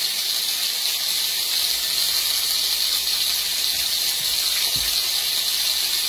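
Flour-dredged cube steak frying in hot vegetable oil in a skillet: a steady, even sizzle, with a couple of faint soft knocks about four to five seconds in.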